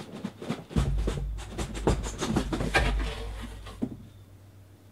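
Corrugated cardboard card cases being handled and stacked on a table: a quick run of knocks, scrapes and bumps for about four seconds, then it goes quiet.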